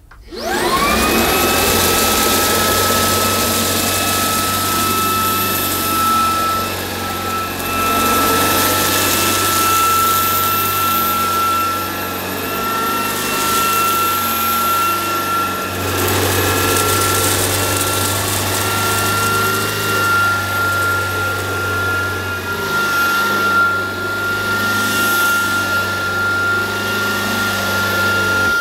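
Shark WandVac cordless stick vacuum switched on, its motor spinning up to a steady high whine within about a second. It then runs while the floor nozzle is pushed back and forth over carpet, picking up scattered red lentils and grit.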